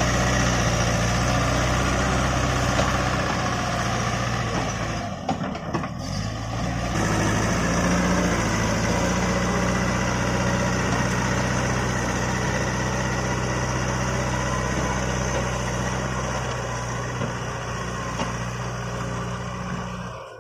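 JCB backhoe loader's diesel engine running steadily under work, dipping briefly about five seconds in and then picking up again.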